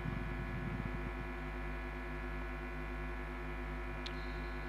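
Steady electrical hum and buzz from a microphone and PA sound system, with a faint low murmur in about the first second and a single sharp click about four seconds in.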